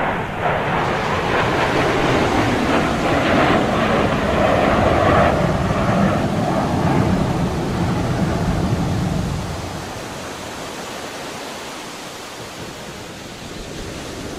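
Steady rushing noise ambience, louder for the first nine seconds or so, then settling to a quieter hiss.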